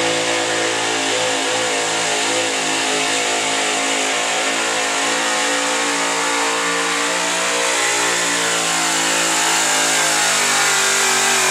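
Gas-engined 4x4 pickup truck in a truck pull, its engine held at high revs under load as it drags the weight-transfer sled down the track. The engine note stays steady and loud throughout.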